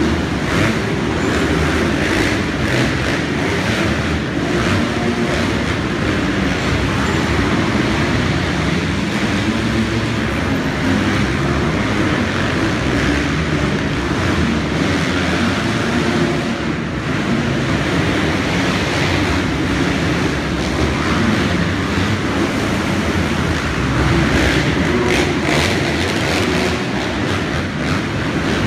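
Several motocross bikes racing around an indoor arenacross track, their engines running loud and steady.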